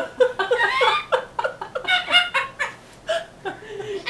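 Laughter, strings of short repeated 'ha' sounds, dying down about two and a half seconds in.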